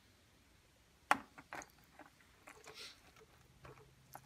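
Ladle scooping wet cooked lentils out of a stainless steel pot: a sharp clink against the pot about a second in, then a few softer clicks and quiet wet squishing as the lentils are dropped and spread on a dehydrator sheet.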